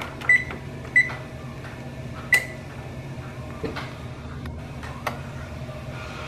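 Tappan oven's control panel beeping three times as its keypad buttons are pressed to set it to bake at 350°, with a few soft button clicks later, over a steady low hum.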